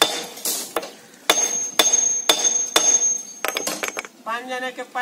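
Claw hammer striking soft steel binding wire laid across a concrete kerb edge to break it: a run of sharp metallic blows about two a second, with a high ringing through the middle, then a quick flurry of lighter taps.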